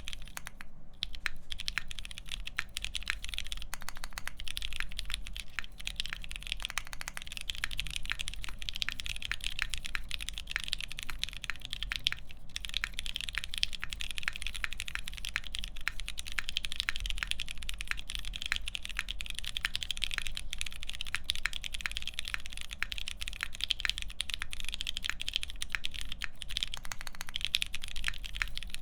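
Steady, fast typing on a Salvation mechanical keyboard with lubed Pewter switches on a half FR-4 plate and Hammerworks CRP PBT keycaps: a dense, even stream of keystrokes, with brief pauses just after the start and about twelve seconds in.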